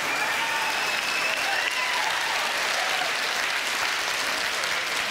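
Large seated audience applauding steadily, with a few voices calling out from the crowd.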